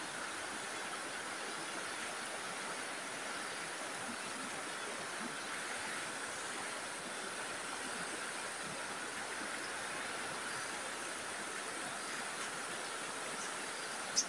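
Steady sound of stream water flowing, with one brief sharp click near the end.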